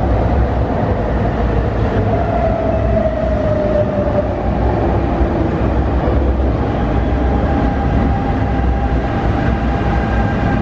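An MTR Tung Chung Line Adtranz-CAF electric train running into the station past the platform, its wheels rumbling on the rails. A whine falls in pitch a couple of seconds in, and steadier whining tones come in after about six seconds as it slows to stop.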